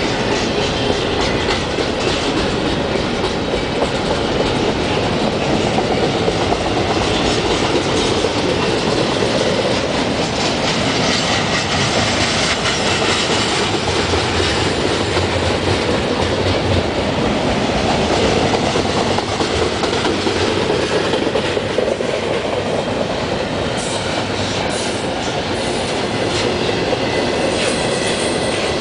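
Union Pacific double-stack intermodal freight train rolling past, its loaded container well cars running steadily on the rails with a continuous clatter of wheels.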